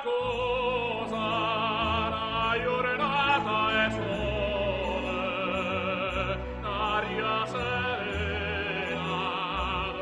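Operatic singing with a wide, wavering vibrato over accompanying music.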